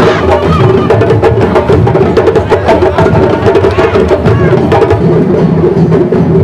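Percussion music: fast, dense drumming with sharp strokes close together.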